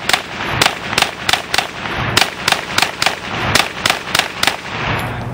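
Rapid string of about fifteen shots from a 9mm pistol-caliber carbine, fired in quick groups of two to five with brief pauses between, stopping shortly before the end.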